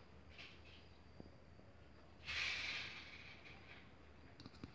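Clear glitter slime kneaded by hand in a glass bowl: faint sticky handling sounds and a few soft clicks, with one airy hiss of about a second a little past the middle.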